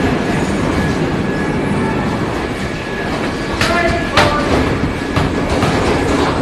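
Car assembly-line machinery noise: a steady clattering rumble, with two sharp clanks that ring briefly, the louder one about four seconds in.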